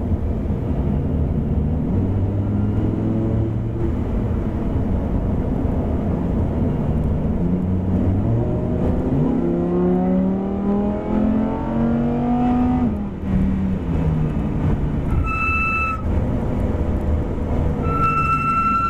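Lamborghini Huracan LP610-4's V10 engine pulling through the gears, heard from inside the car, its pitch climbing in steps and dropping sharply about 13 seconds in. A steady high beep sounds twice near the end.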